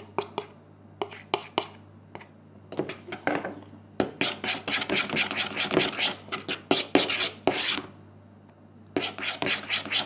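A spoon stirring and scraping around a container of glue-based slime mixture: quick rasping strokes, light at first, then a dense run, a pause of about a second, and the stirring starts again near the end.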